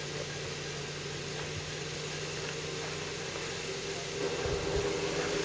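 Jeep Wrangler JKU engine idling steadily, growing a little louder about four seconds in.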